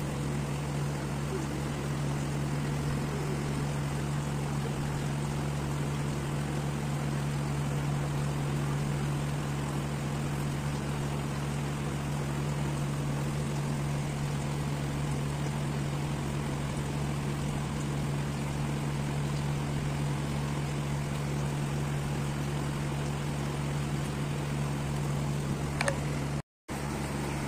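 A steady low machine hum with a hiss over it, from a small motor running without change. It cuts out for a moment near the end.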